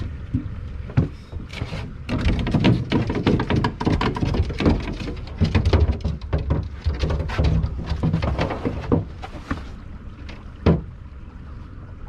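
Irregular clattering knocks and thumps of boots and gear on an aluminum jon boat's deck and hull, thickest from about two to ten seconds in, with one sharp knock near the end, over a low steady rumble.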